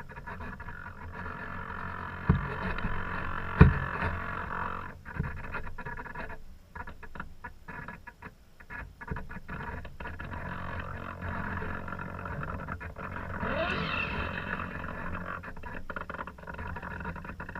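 Rushing wind and water noise aboard a sailing boat under way, picked up by a GoPro camera in its housing, with two sharp knocks a little over 2 and about 3.5 seconds in.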